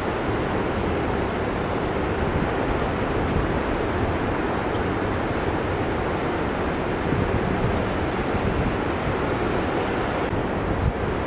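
Ocean surf breaking and washing in a steady, continuous rush of whitewater.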